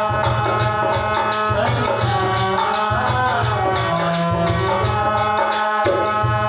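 Devotional bhajan: a harmonium holds steady chords while a man sings, and small brass hand cymbals (manjira) strike a steady, regular beat.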